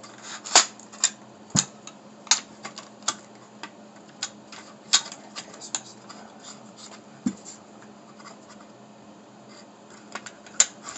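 Shotgun parts being worked apart by hand: irregular light metallic clicks and clinks with some scraping, and a duller knock about seven seconds in.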